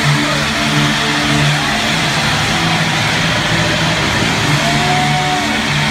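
Loud, steady stadium din: a large crowd and held low notes of music or chanting, with the rushing of pyrotechnic smoke jets and flame cannons firing beside the pitch.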